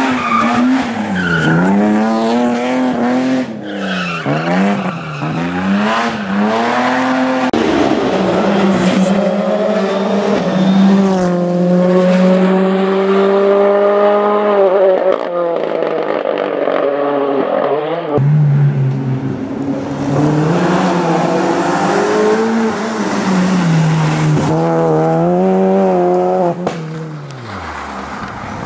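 Rally cars driven hard on a tarmac stage: engines revving up and dropping again and again through gear changes as they brake into and accelerate out of bends. The sound cuts abruptly from one car to the next twice.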